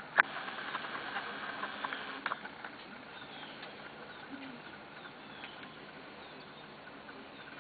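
Corgi puppies moving about, their paws and claws pattering and clicking, with a sharp click just after the start and a cluster of clicks about two seconds in. A few faint high squeaks are mixed in.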